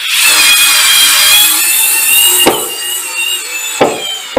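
INGCO 4 V cordless screwdriver's motor and gearbox giving a steady high whine as it drives a Phillips screw into wood at its full torque setting, with a knock about two and a half seconds in. The whine weakens after about three seconds and gives way to a few knocks as the screw sinks fully into the wood.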